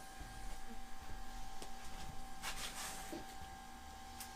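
Faint workshop handling sounds: a few soft clicks and brief rustles over a steady low hum, with no drill running.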